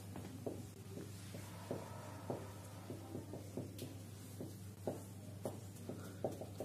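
Marker pen writing on a whiteboard: a quick run of short, faint strokes and taps as letters are written, over a steady low hum.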